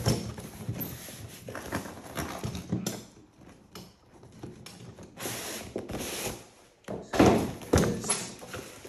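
Unpacking noise: irregular rustling, scraping and knocking as a box and its packing are handled and opened, with a louder run of knocks near the end.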